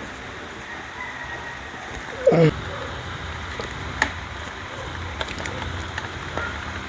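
A few light clicks and taps, the sharpest about four seconds in, over steady background noise with a low hum. A brief voiced sound comes about two seconds in.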